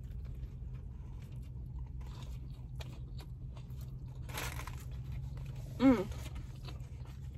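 Close-up chewing of a bitten grilled chicken sandwich with lettuce and tomato, with soft crunching, over a steady low hum. A short vocal sound, the loudest moment, comes about six seconds in.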